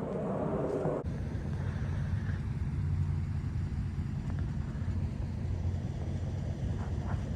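Wind buffeting the microphone as a steady low rumble. It changes abruptly about a second in, from a brighter rush to a deeper rumble.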